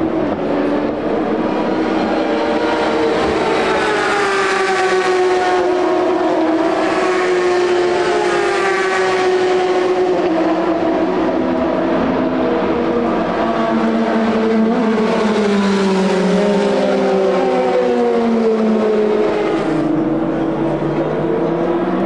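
Endurance racing cars at full speed, several engines heard together, their notes rising and falling as the cars accelerate, shift gears and pass by.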